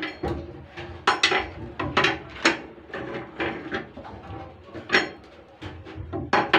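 Construction work: about ten irregular knocks and clanks of tools and materials being struck or handled, some with a brief metallic ring.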